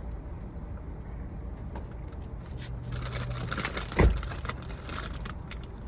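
Steady low hum inside a car, with light clicks and rustling from something being handled and one loud thump about four seconds in.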